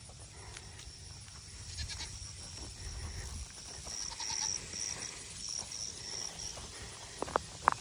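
Goats milling about after being let out of their pen, with a couple of short goat calls near the end. A high, repeated chirping sounds in the background through the middle.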